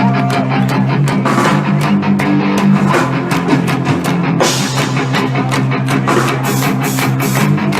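Live rock band playing an instrumental passage: electric guitar, bass and a drum kit keeping a steady beat.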